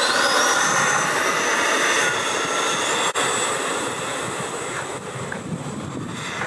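FMS F-16 RC jet's 80mm electric ducted fan on a 6S battery, whining at takeoff throttle. The high whine rises in pitch in steps over the first three seconds, then holds steady and grows fainter as the jet lifts off and climbs away.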